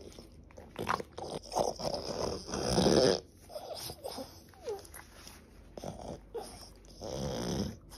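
French bulldog snorting and huffing in short, noisy breaths, the loudest about two to three seconds in, with one short falling whine about halfway through.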